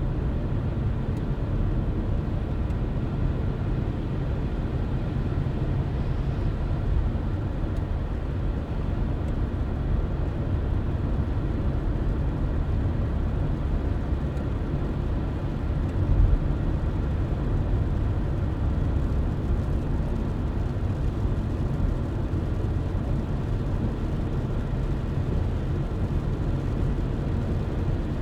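Car driving at a steady speed: constant low rumble of tyres on the road and the engine, with one brief thump about halfway through.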